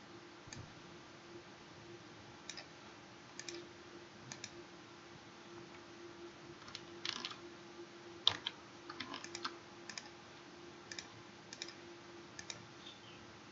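Scattered, irregular clicks from a computer mouse and keyboard, the sharpest a little past the middle, over a faint steady electrical hum.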